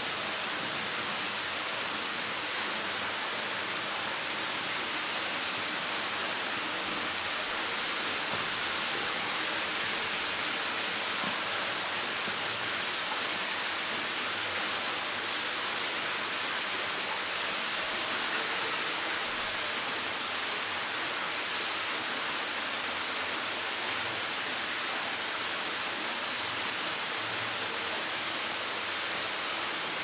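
Steady rushing hiss of water running through a limestone cave, even and unbroken.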